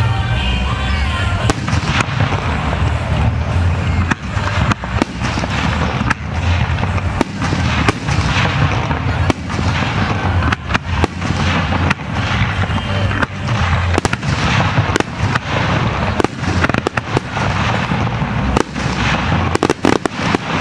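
Starmine fireworks barrage: many shells launching and bursting in quick succession, with sharp reports every second or less and crackling in between.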